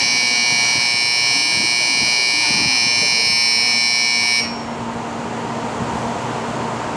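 Shinkansen platform departure buzzer sounding one steady, shrill ring for about four seconds and then cutting off abruptly, the signal that the 700 Series train is about to leave. A low steady hum continues underneath.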